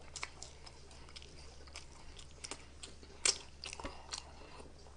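Close-miked chewing of a mouthful of waffle fries: scattered soft mouth clicks and smacks, the loudest one a little over three seconds in.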